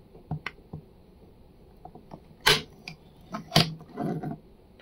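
Hard plastic clicks and clacks from a 3D-printed insert press and printed part being handled after a brass threaded insert is pressed in: faint small ticks, then two sharp clacks about 2.5 and 3.5 seconds in.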